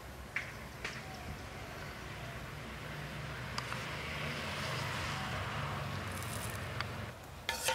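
Portable gas stove burning steadily under a wok as cooking oil is poured in and spread with a spoon. There is a soft hiss that swells and fades in the middle, and a few light clicks of the spoon and bowl. Near the end a louder sizzling and stirring starts in the pan.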